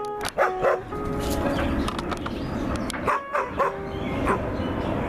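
A dog makes several short, high whining and yipping calls, in clusters near the start, about a second in, and about three seconds in. Background music plays underneath.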